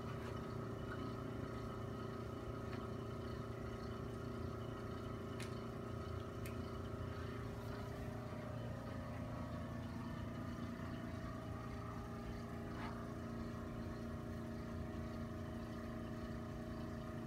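Steady motor hum, with a few faint clicks in the middle.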